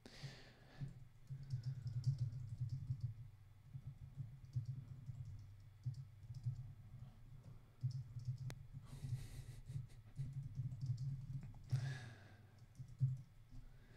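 Faint scattered clicking of a computer mouse and keyboard, with a few breaths close to the microphone.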